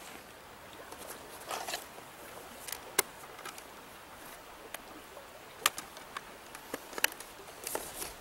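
Steady rush of a shallow stream under scattered sharp clicks and short rustles of clothing and a chest pack as fly-fishing gear is handled during re-rigging.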